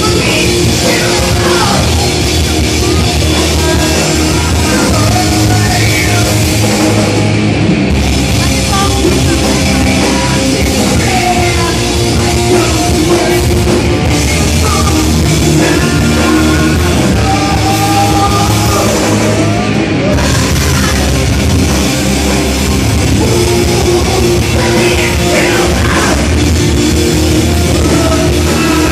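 A heavy rock band playing live, with electric guitars, bass and a drum kit, and a vocalist singing into a microphone.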